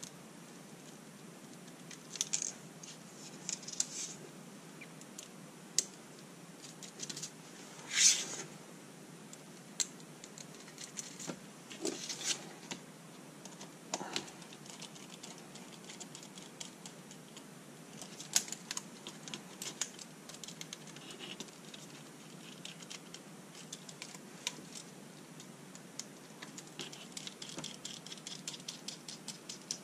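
Small hardware being fitted by hand: bolts and nuts turned and tightened with a small precision screwdriver, giving scattered light clicks, taps and scrapes of metal against plastic and cardboard. A brief louder scrape comes about eight seconds in, and a quick run of small clicks comes near the end.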